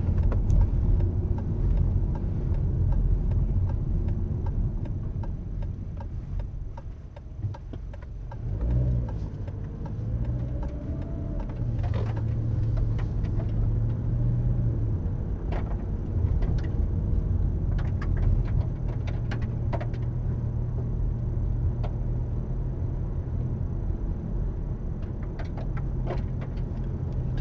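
Car engine and tyre rumble heard from inside the cabin while driving. The engine note drops away about seven seconds in, then rises as the car accelerates again and settles to a steady cruise.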